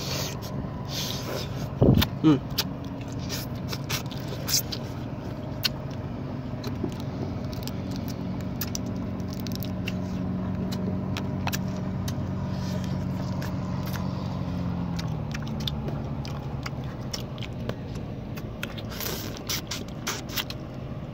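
An engine runs steadily throughout, its pitch dropping slightly about fifteen seconds in. Over it come scattered sharp clicks and taps of chopsticks against a bowl and plate, loudest about two seconds in.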